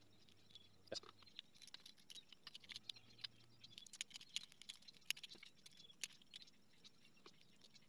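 Faint, irregular ticks and scratches of a small piece of glass being scored and chipped by hand with a broken spark-plug ceramic.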